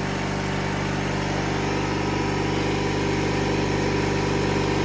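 Engine of a 1997 MTD Yard Machines riding lawnmower running steadily at idle, freshly cold-started and warming up.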